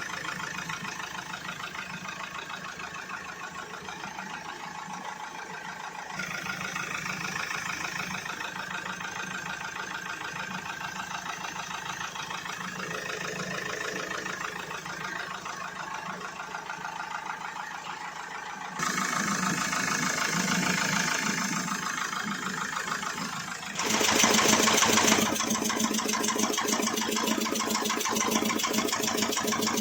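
Mahindra XUV500's 2.2-litre mHawk four-cylinder diesel engine running steadily at idle with a rapid, even pulsing. The sound changes abruptly a few times and gets louder about two-thirds of the way through, as between separate clips.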